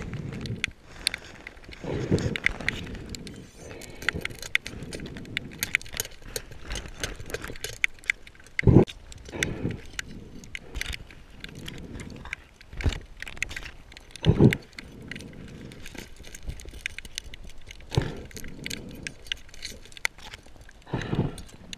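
Underwater sound heard through a camera housing: a steady crackle of sharp clicks, broken several times by dull knocks and rumbles as a speared fish and the spear are handled and struggle against each other.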